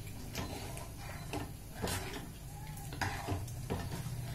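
A metal spoon scraping and knocking against a metal cooking pot as cooked dal is stirred, in scattered strokes every half second to a second, over a low steady hum.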